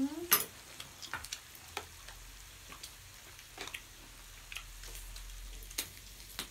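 Meat sizzling steadily on a grill pan over a portable gas burner, with scattered sharp clicks of chopsticks against the pan and dishes.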